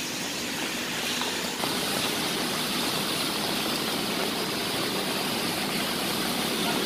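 Steady hiss of rain and traffic on wet streets, growing a little louder about a second and a half in.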